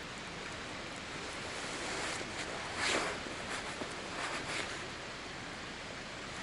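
Steady outdoor rushing noise with a few short rustles about halfway through, the loudest near the middle.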